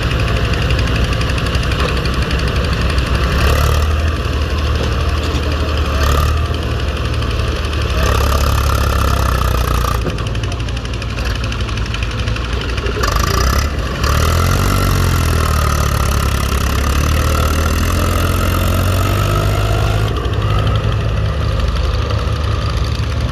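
Diesel engine of a tractor or backhoe loader running steadily, its pitch shifting briefly about fourteen seconds in.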